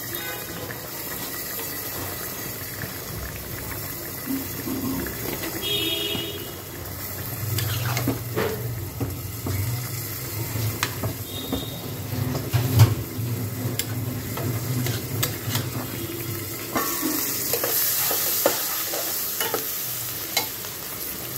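Flat metal spatula stirring a simmering bottle-gourd and chicken curry in a black iron karahi, with scattered scrapes and knocks against the pan over a steady bubbling sizzle. The loudest knock comes about two-thirds of the way through.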